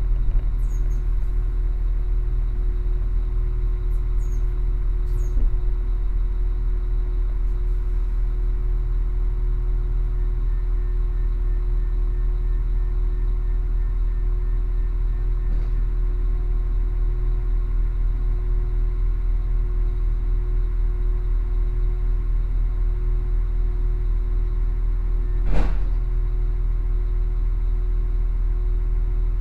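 Steady low engine hum of a standing passenger train, heard from inside the carriage, with a single sharp knock near the end.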